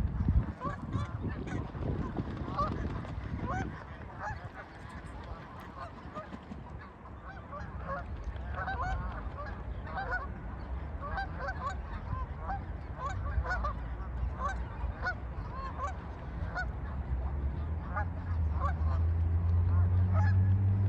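A large flock of geese honking, many short calls overlapping without a break. A low steady rumble comes in near the end.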